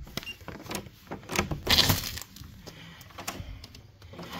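Hotel room door's key-card lock being opened: a short faint tone near the start as the card is held to the reader, scattered clicks, then a louder clatter of latch and handle about a second and a half in as the door is pushed open.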